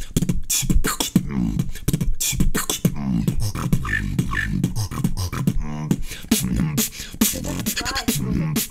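A man beatboxing: a fast, continuous run of mouth-made kick, snare and hi-hat clicks mixed with low hummed tones.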